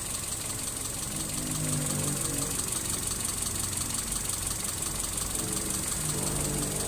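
Mitsubishi 4G33 inline-four carbureted engine idling steadily.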